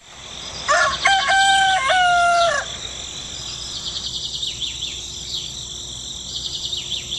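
A rooster crowing once, a long cock-a-doodle-doo starting about a second in, followed by small birds chirping rapidly over a steady high hiss.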